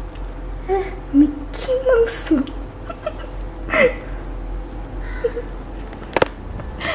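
Short, soft, broken-off vocal squeaks and murmurs from a person, held back rather than spoken out, with a sharp click about six seconds in.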